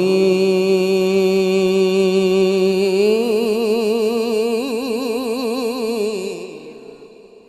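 Qari's voice in melodic Quran recitation, holding the closing word "qadir" of the verse on one long note. About three seconds in it breaks into a wavering, ornamented melisma, then falls in pitch and fades out near the end.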